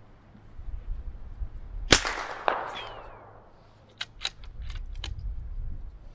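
A single shot from a scoped bolt-action precision rifle about two seconds in, its report trailing off over about a second with a second sharp crack half a second after it. Then a quick run of sharp metallic clicks, the bolt being cycled to chamber the next round.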